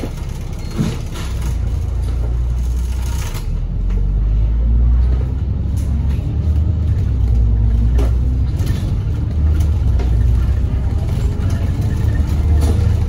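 A double-decker bus (an Alexander Dennis Enviro500) heard from inside the cabin while driving, with a steady low engine and road rumble. It grows louder about a second in and again a few seconds later, and there are a few brief rattles.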